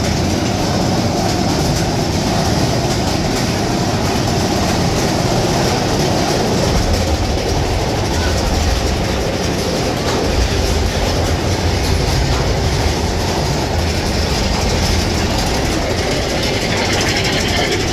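Arrow mine train roller coaster cars rolling along the track, a steady loud rumble and clatter of wheels on rail heard from a seat on the train.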